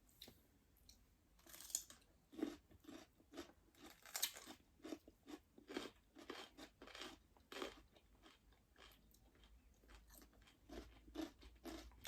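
Close-miked chewing with crisp crunching bites: an irregular run of short crunches, roughly two a second, the loudest about two and four seconds in.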